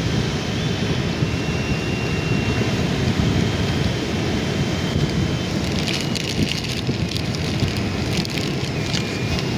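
Wind rumbling on the microphone over surf, a steady noise heaviest in the low end. From about six seconds in, a spell of crackling, rustling clicks sits on top of it.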